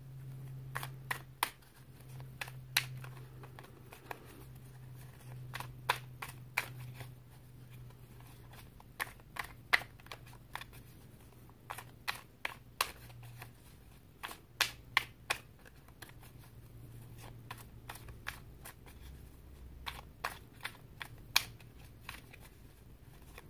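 A deck of tarot cards being shuffled and handled by hand, with many sharp, irregular clicks and snaps of the cards. A low steady hum runs underneath.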